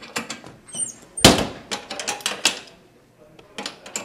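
Metal school locker being handled: a string of sharp latch clicks and metallic knocks, the loudest a heavy bang about a second in.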